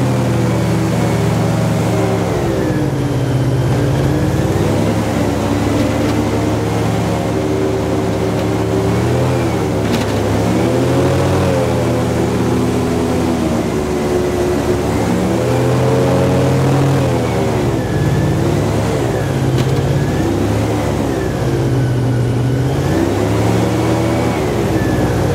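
Airboat's engine and propeller running loud and steady, the engine speed dropping and climbing back several times as the boat crosses the ice.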